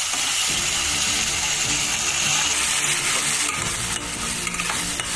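Chopped onions and green chillies sizzling steadily in hot oil in a kadai, while a spatula stirs them with irregular scraping against the pan, just after turmeric has gone in.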